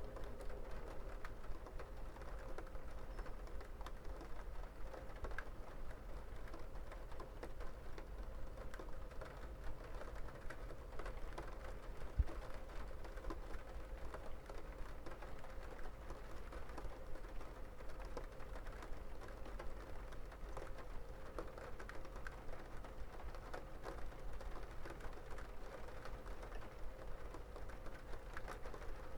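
Rain falling: many small, irregular drops tapping over a steady patter, with a low rumble underneath. One louder single knock about twelve seconds in.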